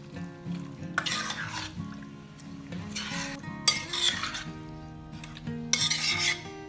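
Mutton marinade being stirred in a bowl with a utensil: four bouts of scraping and stirring, with a sharp clink at the start of the third, over soft background music.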